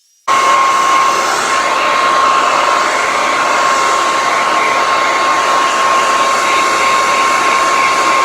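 Handheld hair dryer blowing steadily, with a constant high whine over the rush of air. It starts abruptly just after the beginning.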